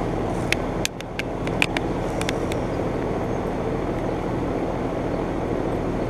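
2011 Trane XB13 heat pump outdoor unit running in heat mode: a steady compressor hum and fan noise, with a few light clicks in the first two and a half seconds. The owner says the unit is short cycling, and its outdoor coil is partly frozen.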